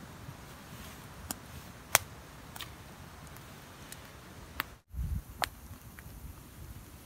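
Knife blade shaving a wooden stick: a few sharp, separate scraping strokes, the loudest about two seconds in. After a short break near five seconds, a low rumble of handling and one more click.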